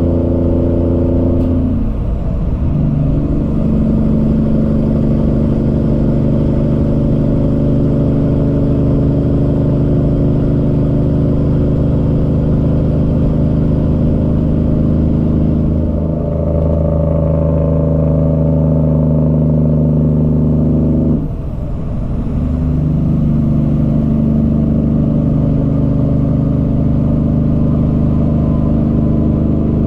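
Cummins ISX diesel engine of a Peterbilt 379 pulling a loaded trailer, a steady engine note that breaks and settles at a new pitch about two seconds in, around sixteen seconds and around twenty-one seconds, as with gear shifts.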